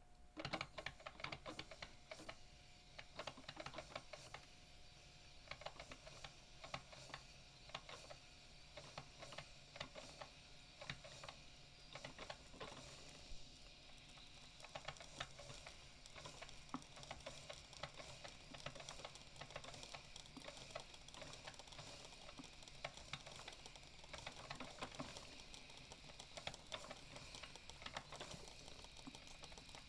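Coffee machine running: a faint, irregular crackle of small clicks and pops over a low steady hum.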